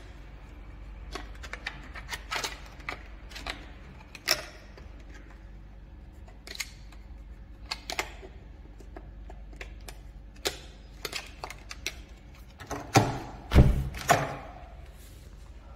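Scattered clicks and knocks of things being handled, with a few louder, heavier thuds close together near the end.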